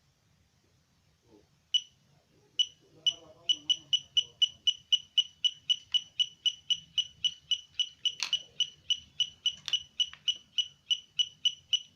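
Simple homemade metal detector beeping: two single short high beeps, then a steady train of short beeps at about three to four a second. Two sharp knocks come near the middle.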